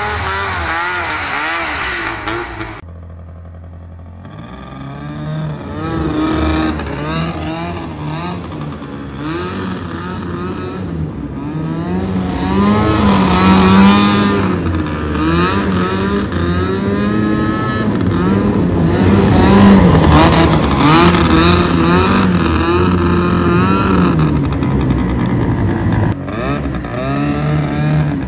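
Alsport Tracker GT15's twin-cylinder Hirth two-stroke engine running as the tracked ATV is driven, its pitch rising and falling over and over with the throttle. It drops away briefly about three seconds in, then picks up again and gets louder.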